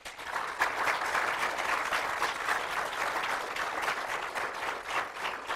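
Audience applauding: many hands clapping, building up quickly at the start and then holding steady.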